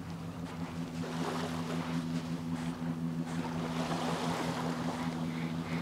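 A steady low motor drone that grows stronger about a second in, over the hiss of small waves and wind at the shoreline.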